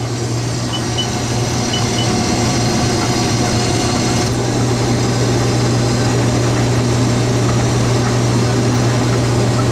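Combine harvester running steadily under harvest load, a constant low engine drone with machinery noise over it.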